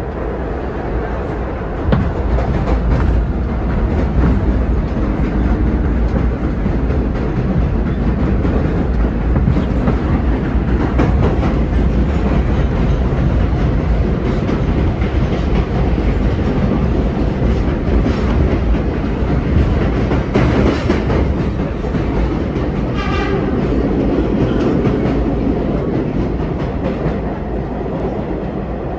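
Vintage New York City subway train running, a steady loud rumble and clatter of wheels on rail joints heard from aboard the cars. A short pitched tone sounds once about 23 seconds in.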